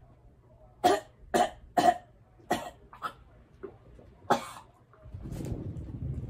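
A woman retching and coughing hard during a purge brought on by a duck flower detox: six sharp heaves, then a longer, lower retch near the end.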